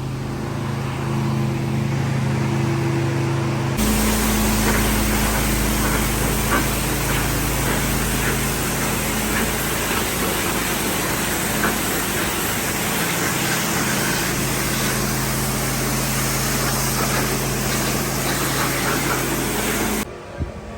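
Pressure washer running steadily with the hiss of its water jet spraying. The spray hiss jumps much louder about four seconds in and cuts off abruptly just before the end.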